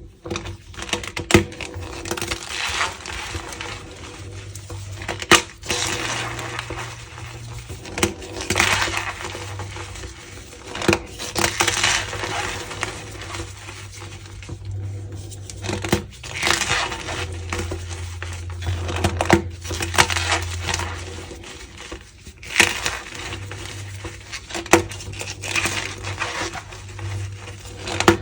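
Reformed gym chalk blocks being crushed and squeezed, crumbling with squeaky crunches. The crunches come in irregular bouts a second or two apart, with sharp cracks among them.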